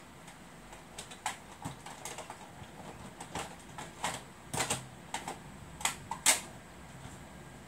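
Plastic cassette tape cases being handled and sorted: irregular clicks and clacks, with a sharper knock about six seconds in.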